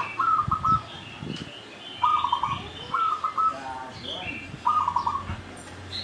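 Caged zebra doves (perkutut) singing: four short phrases of quick, stuttering coos, with small birds chirping higher above them.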